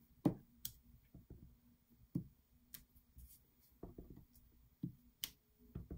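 A clear rubber stamp on an acrylic block being tapped onto an ink pad and pressed onto cardstock. It makes a faint series of light, irregularly spaced taps and clicks, about eight in all.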